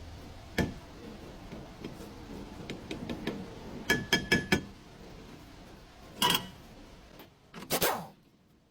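Metal tools clinking and knocking as they are handled, a few separate knocks with a quick run of four ringing metallic clinks about four seconds in.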